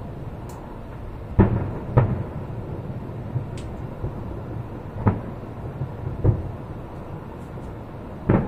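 Distant aerial firework shells bursting: five booms at uneven intervals, each with a short echoing tail, the loudest near the end.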